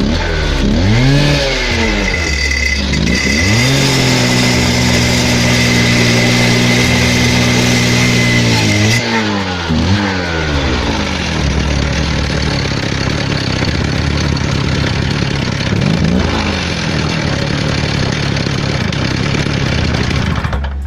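Stihl saw's two-stroke engine revving: its pitch rises and falls twice, holds high and steady for about five seconds, rises and falls twice more midway, then runs on steadily.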